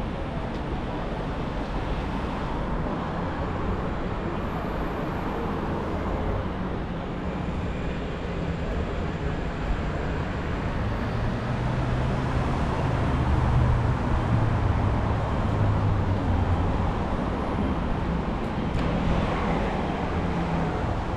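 City street traffic: cars running by. A low rumble swells about halfway through as a vehicle passes close, then fades a few seconds later.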